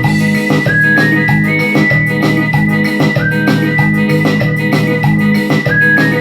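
Electronic keyboard playing an instrumental passage with a steady beat: a high lead melody that repeats its phrase over sustained organ-like chords and bass.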